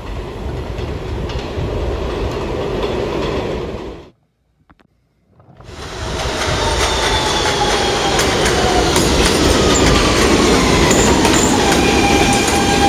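New York City subway train running on the rails, a steady rumble that cuts off about four seconds in. After about a second and a half of silence another train sound comes in, louder, with its wheels squealing in drawn-out tones that slide down in pitch.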